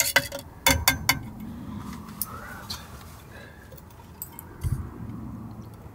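A spoon clinking against a glass while stirring a drink: a quick run of bright clinks in the first second, then only a few faint, scattered clicks.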